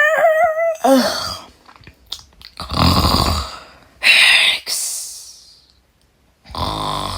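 A person's voice acting out yawning and snoring. It opens with the wavering, drawn-out tail of a voiced yawn, then breathy snores and exhales follow; the last snore, near the end, has a low rattle.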